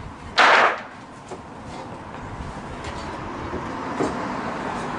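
A short, loud scraping knock as a cutting-table support is pushed into its slot, followed by a steady rumbling noise that slowly grows louder.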